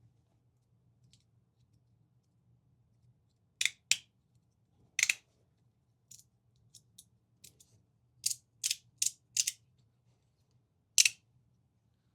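Magnetic fidget slider's plates snapping against each other: sharp, separate clicks, a pair about three and a half seconds in, one more a second later, a few fainter ones, then a quick run of four and a last loud click near the end.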